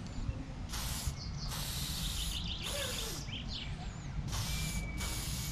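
Aerosol spray paint can hissing in five short bursts, each from about a third of a second to almost a second long, with brief gaps between them.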